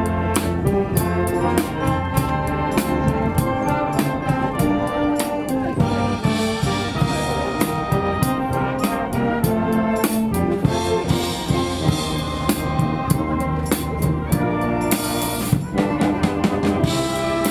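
A junior-high school wind band playing live: brass over a drum kit keeping a steady beat, with cymbal crashes several times.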